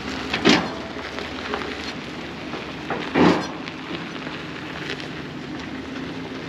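A vehicle engine running steadily under a crackling, rustling noise, with two loud short bursts of noise, one about half a second in and one about three seconds in.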